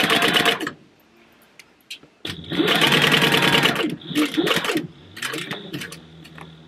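Industrial sewing machine stitching through thick layers of a purse in short runs as it backstitches the seam. It stops about half a second in, starts again after a pause, and runs for nearly two seconds before going quieter and more stop-start over a steady low motor hum.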